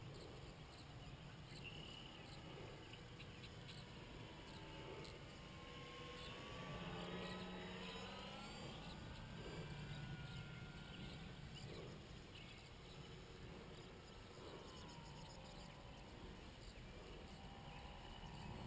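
Faint whine of a Multiplex FunCub RC model plane's electric motor, its pitch sliding up and then down as the plane flies past, most clearly in the middle and again about three quarters of the way through.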